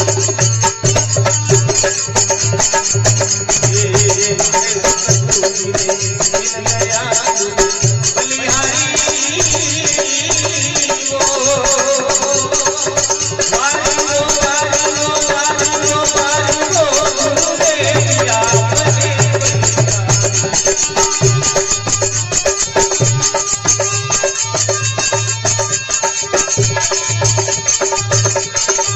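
Instrumental interlude of a folk devotional bhajan: a steady drone and a drum beat with percussion. A wavering melody line rises over them for several seconds in the middle.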